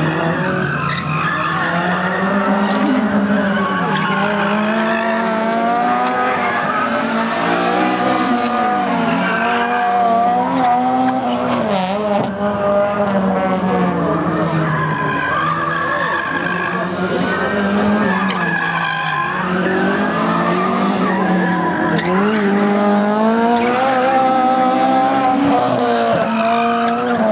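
Front-wheel-drive race car engines revving hard, their pitch climbing and dropping over and over as the cars accelerate and brake around the course, with tyres skidding at times.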